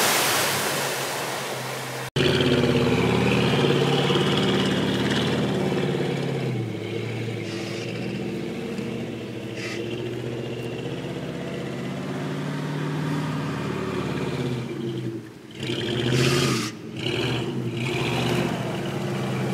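A rush of splashing mud and engine noise for about two seconds. Then, after a sudden cut, a lifted Chevrolet K5 Blazer's engine is heard running and revving as it drives on grass, its pitch rising and falling several times, with the strongest rev-up near the end.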